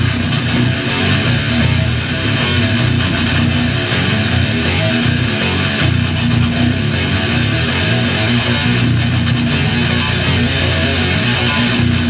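Electric guitar and bass guitar playing a heavy metal riff together, loud and continuous.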